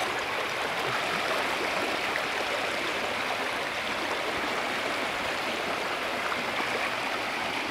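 Muddy floodwater flowing fast and rushing steadily past fence posts and netting, splashing white against the posts.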